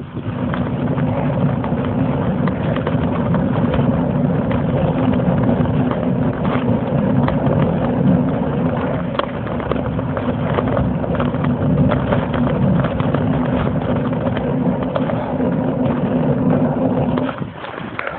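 Steady low drone of a bike riding up a paved mountain road, with frequent knocks and rattles from the road surface. The drone stops suddenly near the end.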